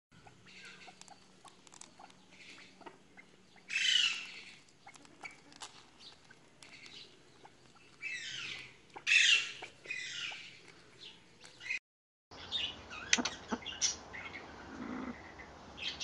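Birds calling and chirping, with louder bursts of quick downward-sliding notes about four seconds in and again around eight to ten seconds. The sound cuts out for a moment near twelve seconds, then sharper chirps and clicks follow.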